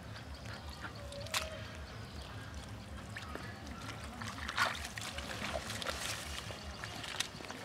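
Wet mud and water squelching and dribbling as bare hands scoop and dig in a muddy hole, with a few sharp clicks, the loudest about four and a half seconds in.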